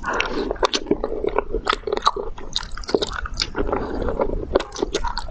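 A person chewing and biting seafood close to the microphone: quick, irregular wet mouth clicks and smacks running through, with no words.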